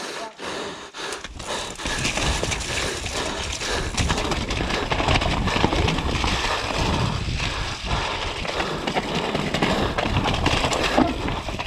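Mountain bike descending a rough, muddy trail: tyres rolling and sliding through mud and roots, with the frame and drivetrain rattling and knocking over the bumps. Wind rushes over the camera's microphone.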